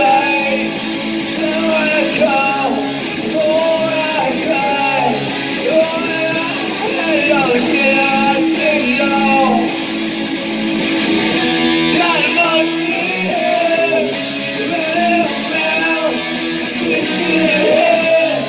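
Guitar playing with a man's voice singing along; the sung line bends and wavers in pitch over steady strummed notes.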